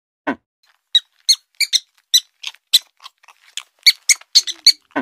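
Rabbit squeaking: a quick run of short, high-pitched squeaks, about three a second, some coming in quick pairs. A lower, fuller squeak comes just after the start and another right at the end.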